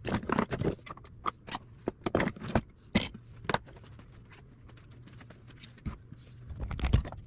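Irregular clinks and clatters of small metal scrap parts being handled during the teardown of food service scales, with a low steady hum underneath.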